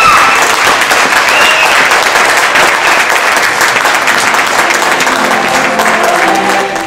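A standing ovation: a roomful of people clapping steadily, with one pair of hands clapping close by.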